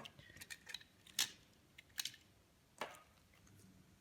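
Small die-cast metal toy car being handled, giving a handful of faint, irregular clicks and taps, the sharpest about a second in.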